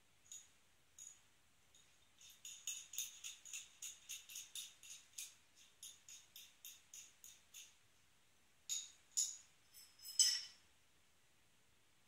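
Small metal bicycle tools jingling and clinking together as they are handled: a few scattered light clinks, then a quick run of them for several seconds, and a few louder clinks near the end.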